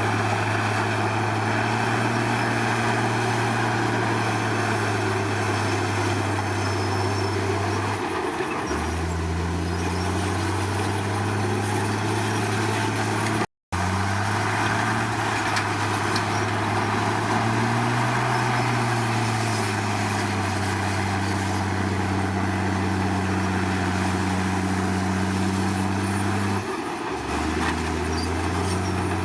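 Komatsu D53 bulldozer's diesel engine running steadily, its pitch dipping lower briefly twice, about eight seconds in and again near the end.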